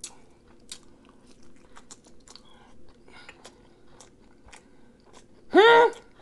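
Close-up chewing of food, with many small wet mouth clicks. About five and a half seconds in, a short, loud vocal sound with a pitch that rises then falls briefly interrupts the chewing.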